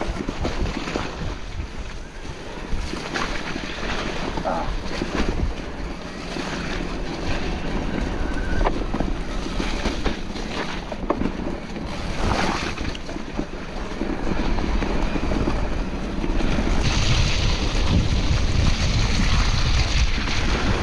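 Wind rushing over the microphone while a mountain bike is ridden along a trail, with frequent knocks and rattles from the bike over rough ground. The rushing grows louder and brighter for the last few seconds.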